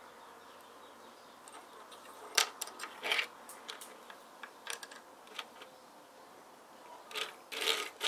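Plastic building-brick toy pieces clicking and tapping as a minifigure and a small brick-built police van are handled and set down on a wooden table. Scattered sharp clicks start about two seconds in, with a denser run of clicks near the end.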